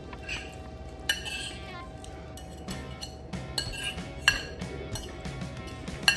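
Metal cutlery clinking against a plate, several sharp clinks that ring briefly, over steady background music.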